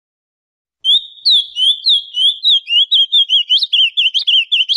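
Ultramarine grosbeak (azulão) singing: starting about a second in, a rapid string of short slurred whistles that speeds up as it goes.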